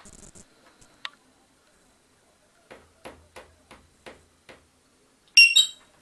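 African grey parrot making a run of about seven sharp clicks, roughly two a second, then a short, loud, high-pitched whistled call near the end.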